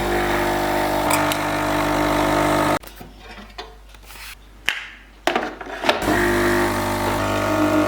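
Coffee machine's pump buzzing steadily as it brews, stopping after about three seconds, with a few clicks in the pause, then starting again about six seconds in.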